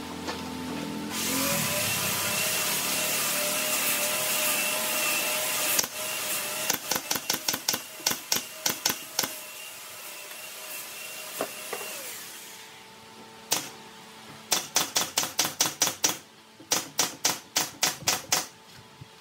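Pneumatic nail gun firing into the wooden panels of a cabinet in quick runs of sharp shots, about four a second. A steady machine hiss with a whine starts about a second in and stops about two-thirds of the way through.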